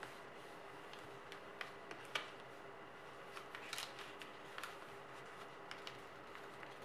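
A sheet of white origami paper being folded and creased by hand: scattered short crackles and taps, with a brief run of crinkling a little past the middle, over a faint steady hum.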